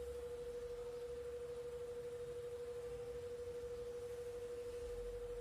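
A single steady pure tone at about 500 Hz, held unchanged at a low level, with a faint low rumble beneath it.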